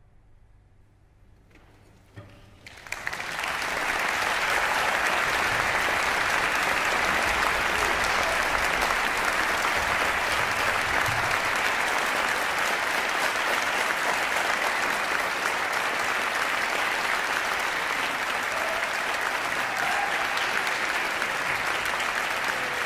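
Concert-hall audience applauding at the end of a performance: after a short hush, a first few claps come about two seconds in, and within a second the full audience joins in with steady, sustained applause.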